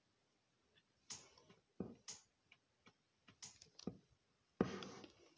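Faint handling noise from a handheld phone and a book: a few irregular clicks and taps from about a second in, then a sudden, louder rustle near the end.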